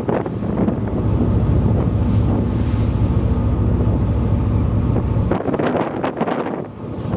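Strong wind buffeting the microphone aboard a ferry in a gale, with a heavy low rumble and a steady low drone beneath it that ease off about five seconds in.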